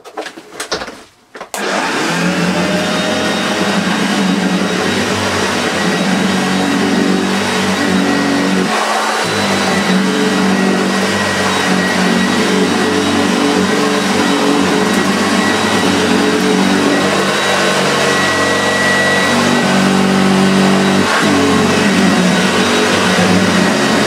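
Hoover Junior 1436 Mk1 upright vacuum cleaner. A few clicks, then it is switched on about a second and a half in and runs steadily as it is pushed back and forth over carpet. Its low hum briefly dips twice.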